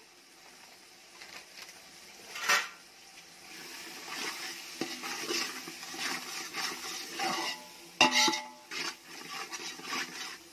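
Metal spoon stirring and scraping a thick, oily masala in a large metal cooking pot, clanking against the pot's side. There is a sharp knock about two and a half seconds in and a loud clank near the eight-second mark.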